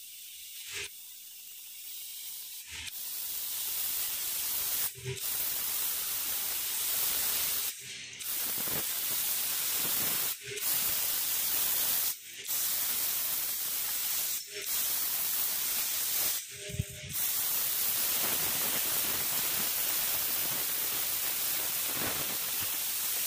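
Air-assist jet hissing at the nozzle of an SM-1610 150 W CO2 laser cutter as it cuts corrugated cardboard. The hiss grows over the first few seconds and then breaks off briefly about every two seconds.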